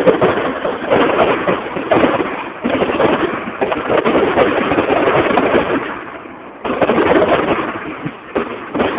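Fireworks going off in quick succession: bangs and crackling that run together into a loud, dense din, easing for a moment about six seconds in before starting up again.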